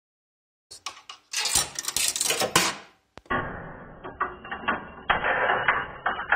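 A coin dropping through the coin mechanism of a Hemauer Miniatur de luxe jukebox, rattling and clinking on metal and clicking the contact for the credit unit. About three seconds in, the same run of clicks and rattles plays again in slow motion, duller.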